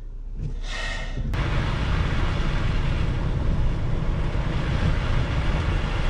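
Cabin noise inside a Ford Transit delivery van driving on a snow-covered road: a steady rumble of engine and tyres that comes in abruptly about a second in, after a brief quieter stretch.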